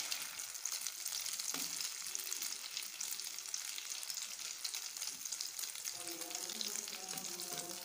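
Egg with tomato, chilli and onion sizzling and crackling in hot oil in a steel pan, while a knife spreads it across the pan.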